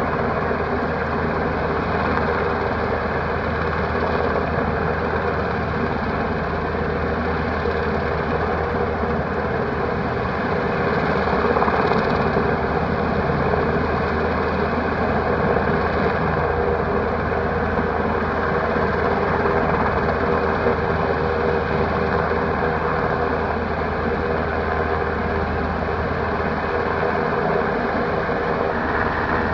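Black Hawk helicopter hovering: a steady, unbroken rotor and turbine engine drone that holds the same level throughout.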